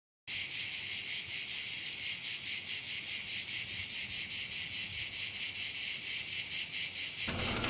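Crickets chirping in a rapid, even pulse of about five chirps a second. Near the end the chirping cuts off as a low hum comes in.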